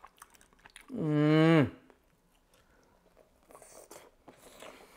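A person eating lets out one drawn-out, hummed 'mmm' of enjoyment about a second in, its pitch dropping at the end. Faint chewing follows.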